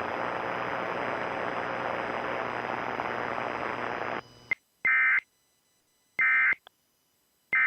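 Steady radio hiss that cuts off suddenly about four seconds in, followed by three short bursts of warbling data tones about a second apart. These are the Emergency Alert System end-of-message (EOM) bursts that close a required monthly test.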